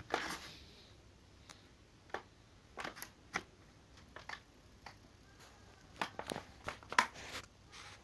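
Rustling and scattered sharp clicks of a mains cable being handled and its plug pushed into a power strip, the loudest click about seven seconds in.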